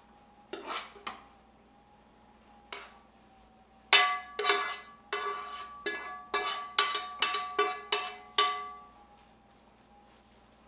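A spoon knocking against a nonstick frying pan, the pan ringing with each strike, as chicken pot pie filling is scraped out of it. A few light knocks come first, then a quick run of about a dozen loud ringing knocks from about four to nine seconds in.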